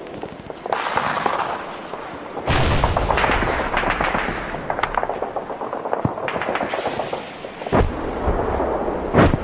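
War battle sound effect: gunfire crackling in rapid shots throughout, with a heavy explosion about two and a half seconds in, another near eight seconds, and a loud single shot near the end.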